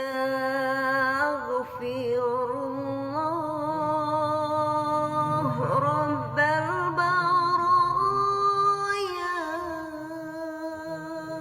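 A solo voice singing a slow chant, holding long wavering notes that step and slide from one pitch to the next without a pause.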